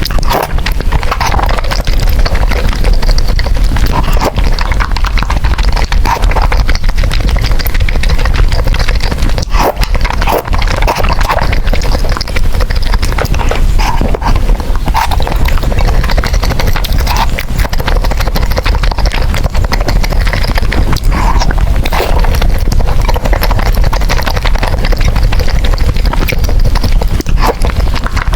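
Close-miked slurping and chewing of noodles, with irregular wet mouth clicks over a steady low rumble.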